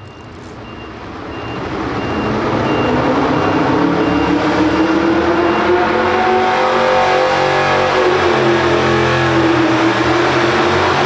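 Light pro stock pulling truck's engine building revs at the start of a pull on the sled: the sound swells over the first couple of seconds and the note climbs steadily for several seconds, then holds loud. A repeated electronic beep sounds during the first half.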